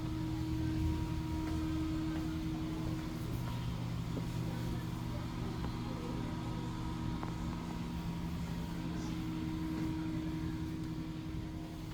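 Semi-truck diesel engine running with a steady low drone.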